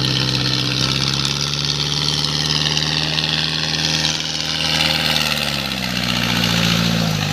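Diesel tractor engine working hard as the tractor churns through deep mud. The engine runs steadily, and its pitch sags toward the end as it bogs under the load.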